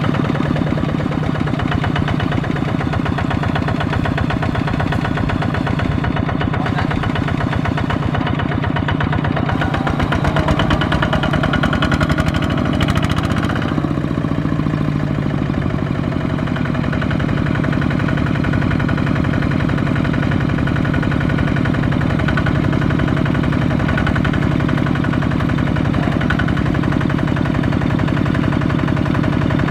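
Two-wheel walking tractor's single-cylinder diesel engine running steadily under load as it drags a loaded trailer through deep mud, revving up and dropping back about a third of the way in.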